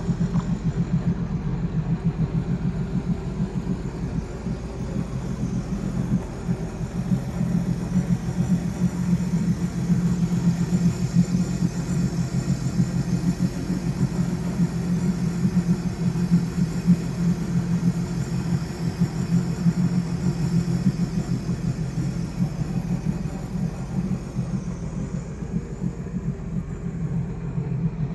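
Jet boat engine running steadily while under way, a constant low rumble.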